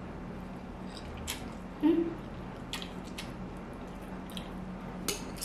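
Close-up mouth sounds of a person eating instant ramen noodles: wet slurping, chewing and lip-smacking clicks, with a brief hum from the throat about two seconds in.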